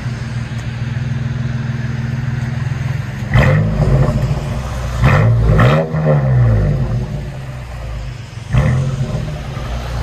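A 2004 Nissan Xterra's engine, straight-piped through a Y-pipe into dual pipes with quad tips, idling steadily and then revved in quick blips, about three seconds in, twice more around five to six seconds, and once near the end.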